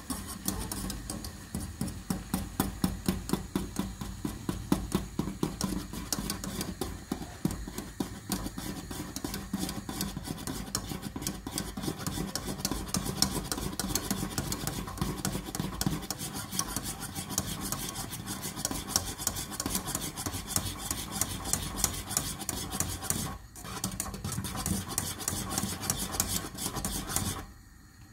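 A utensil scraping and rubbing rapidly against a cooking pot in fast, continuous stirring strokes. There is a short break about 23 seconds in, and it stops abruptly near the end.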